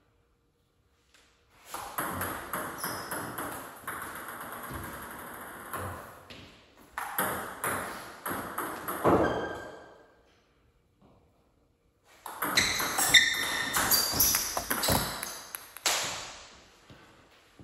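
Table tennis rallies: a celluloid/plastic ball clicking quickly off paddles and the tabletop, with short ringing pings. There are two bursts of play with a pause of about two seconds between them.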